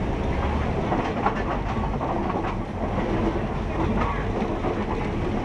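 Maeklong line train running slowly on old, poorly maintained track: a steady low rumble of wheels on rail, broken by scattered knocks and clatter.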